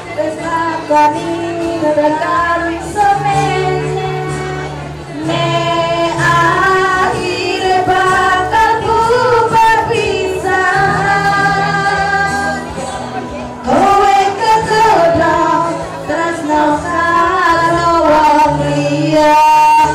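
Two women singing a song into microphones, accompanied by acoustic guitar and hand drums.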